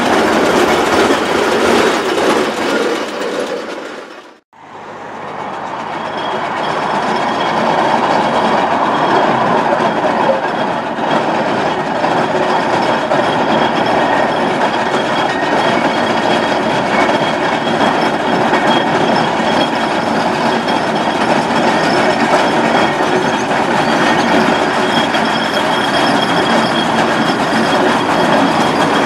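Steam road roller travelling along the road, its iron rolls and wheels running on the tarmac in a steady noise. The sound drops out about four seconds in and fades back up.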